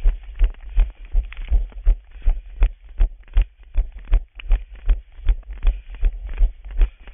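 A runner's footfalls on a paved path, heard as a steady rhythm of low thumps through a body-worn camera, about two to three a second, with a light scuff of shoes on the pavement.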